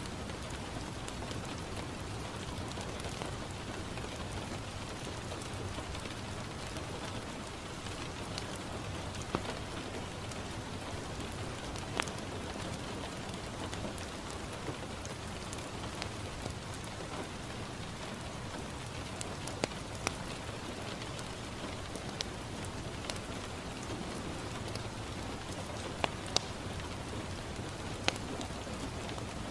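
Steady rain falling on a window, with a fireplace crackling: sharp single pops every few seconds over the even hiss of the rain.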